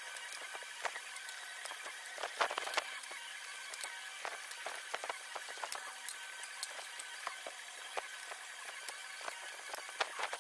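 Wooden fence pickets knocking and clattering as they are set down one after another on a wooden frame, with a faint steady hum underneath.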